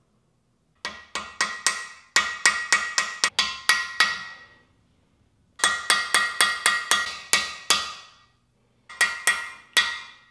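Hammer blows on a driver seating small steel freeze plugs into a cast-iron Chevy 350 small-block, each blow ringing. The blows come in three runs of quick taps, about four a second, the first run the longest and the last the shortest. The plugs are going in tight and not smoothly.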